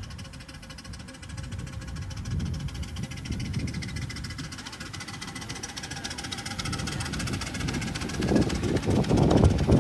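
Miniature steam locomotive and its passenger carriages running along the track toward the listener, a low rumble growing steadily louder. It is loudest near the end, with a quick run of knocks and clatter as the engine draws close.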